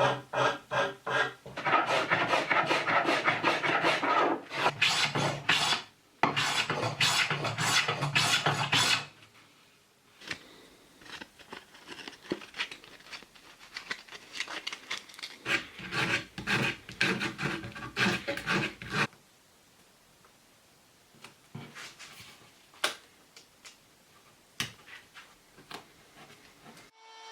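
Dry back-and-forth scraping of a hand tool over oak wood, in quick repeated strokes. The strokes come dense and loud for about the first nine seconds, then lighter and more spaced, thinning to occasional single strokes near the end.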